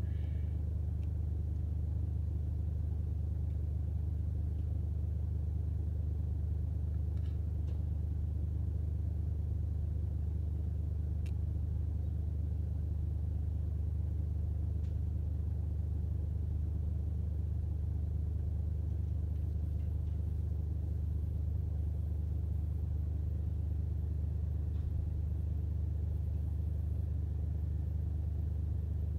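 Fire engine's engine running steadily: a low, even rumble that does not change, with a few faint clicks over it.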